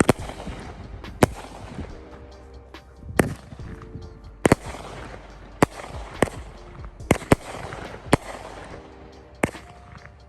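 Large consumer aerial firework, the 'Utopia', going off: a string of sharp bangs about once a second, unevenly spaced, with crackling in between.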